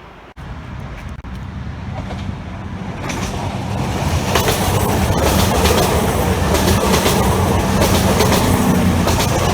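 A train running through the station, growing louder over the first few seconds and then holding steady, with a low steady drone and wheels clicking over the rail joints.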